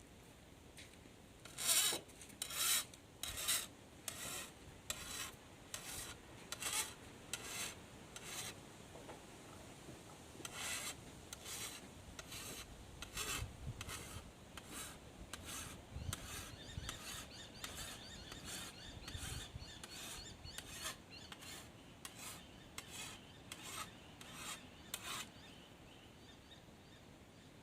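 Hand file rasping across the edge of a steel cane knife in steady strokes a little under a second apart, sharpening the blade. There is a brief pause about a third of the way in, and the strokes stop a couple of seconds before the end.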